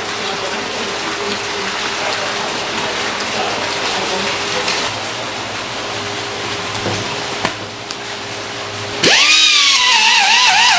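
Water splashing and running in a fish tank with a faint steady hum, then about nine seconds in a powered fish scaler starts up loudly, its whine wavering up and down repeatedly as it is worked over a giant grouper's skin.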